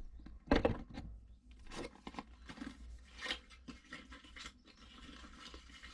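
Cardboard drone packaging being handled: a knock about half a second in, then irregular scrapes, rustles and clicks of boxes and wrapping being moved around.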